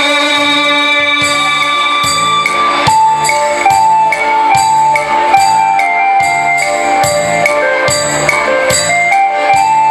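Instrumental break in a Vietnamese pop ballad with no singing. A held chord fades over the first few seconds, then a bright melody of clear, sustained notes plays over a steady beat.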